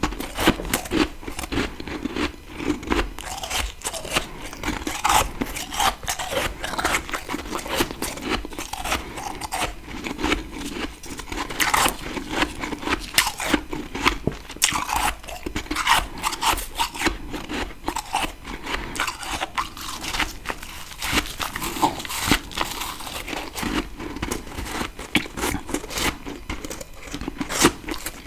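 Freezer frost being bitten and chewed close to the microphone: a continuous, irregular crunching of packed ice crystals.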